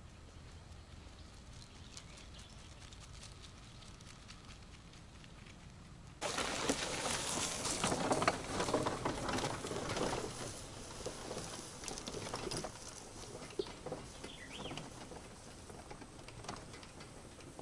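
Faint outdoor background, then, starting suddenly about six seconds in, an old electric golf cart driving over rough grass: crackling and rattling that is loudest around eight seconds in and fades as the cart moves away.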